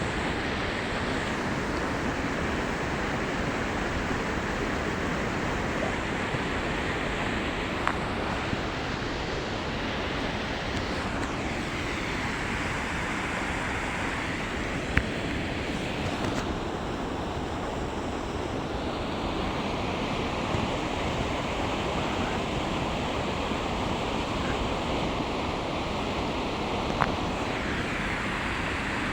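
Waterfall rushing in a steady, even wash of falling water, with a few short clicks.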